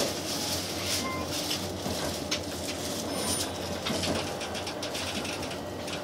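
Interior running noise of a JR West 287 series electric train car moving slowly through a station: a steady low hum under a run of light clicks and rattles.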